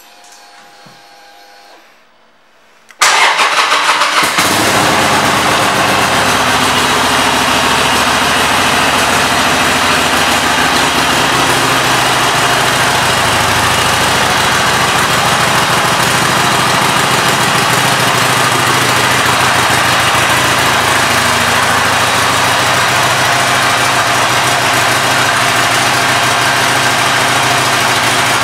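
Harley-Davidson Sportster 883 SuperLow's air-cooled 883 cc V-twin starting about three seconds in, then idling steadily.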